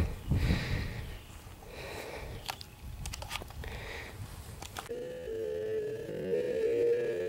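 Wind buffeting and handling noise on a handheld camera microphone, with a few sharp clicks. About five seconds in it gives way abruptly to a steady humming tone that wavers slightly in pitch.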